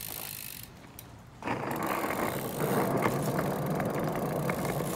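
BMX bike's tyres rolling on pavement, a steady rushing noise that starts suddenly about a second and a half in, with a few light clicks and rattles from the bike.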